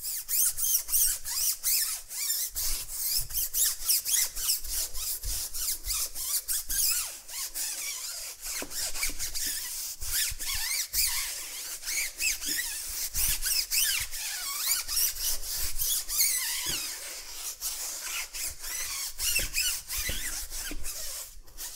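Stiff-bristled tire brush scrubbing the wet rubber sidewall of a car tire, a rapid run of scratchy back-and-forth strokes, several a second, with a short pause near the end.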